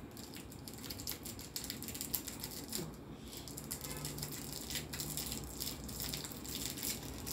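Cellophane wrapper crinkling and crackling in quick, irregular little clicks as it is twisted by hand around a tamarind-pulp candy.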